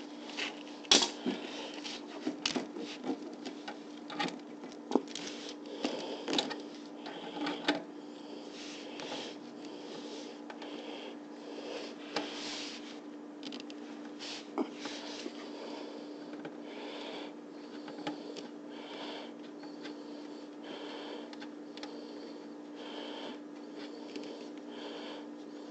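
Hands working on a dishwasher's hose and fittings: a quick run of small clicks and knocks for about the first eight seconds, then softer scattered rubbing and handling noises, over a steady low hum.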